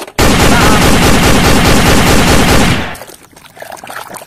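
Battery-operated toy revolver's electronic sound effect: a loud, rapid machine-gun burst that runs for about two and a half seconds and cuts off suddenly. After it, muddy water sloshes quietly in a plastic basin.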